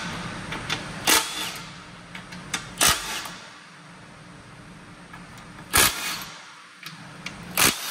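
Impact wrench fired in four short bursts, about two seconds apart, breaking loose the bolts on an 8L90 transmission's case extension.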